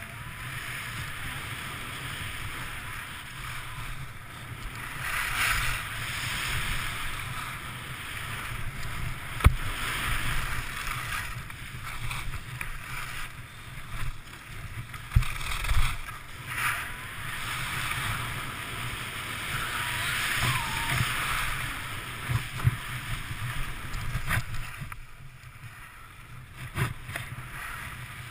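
Skis sliding and scraping over packed snow, the hiss swelling and fading with each turn, over a steady low rumble of wind on the microphone. A few sharp knocks come in the middle stretch.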